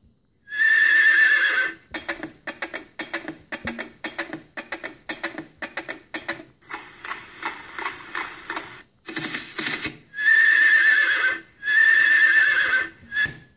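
Recorded horse whinnies and hoofbeats played back from an SD card through a small loudspeaker by a WTV020SD sound module. A long whinny comes about half a second in and two more near the end, and between them there is a run of quick clip-clopping hooves.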